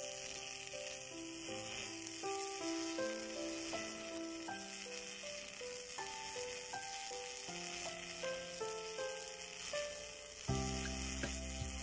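MIG welding arc crackling steadily, the frying-like sizzle of a wire-feed welder laying a bead on a turning pipe. Background music with a simple melody plays over it, with a bass line coming in near the end.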